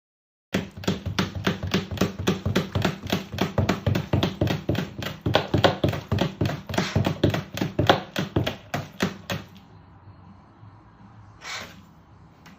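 Rapid, fairly even tapping or clicking, about four to five taps a second, which stops after about nine seconds. A single short rustle follows near the end.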